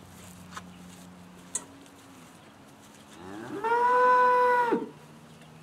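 A Charolais cow mooing once: a single call of about a second and a half that rises in pitch, holds steady, then drops away at the end.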